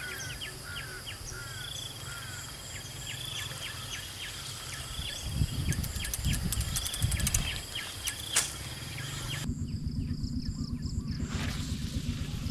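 Outdoor ambience of birds chirping in short repeated calls with insects, over a low rumble that swells about five seconds in, when a few sharp clicks come. About nine seconds in the background changes abruptly to a steadier low hum with the bird calls fainter.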